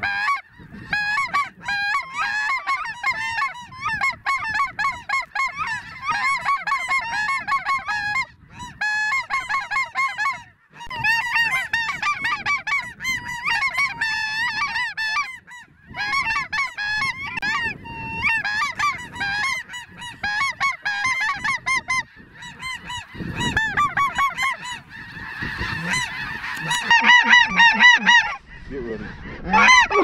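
Chorus of snow geese calling: many high, overlapping honking calls repeated rapidly and without let-up, growing thicker and louder towards the end.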